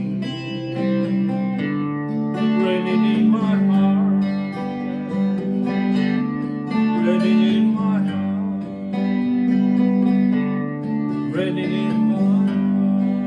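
Acoustic guitar music: an instrumental passage of plucked and strummed chords with a melody line over them.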